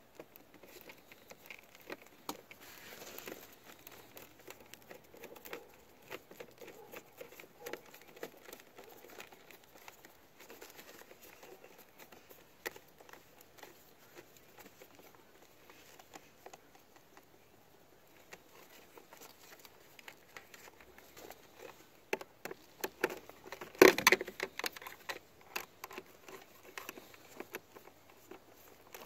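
Hands handling wires and crimp connectors at an ATV's battery: scattered small clicks, taps and rustles, with a brief louder clatter of knocks about two-thirds of the way through.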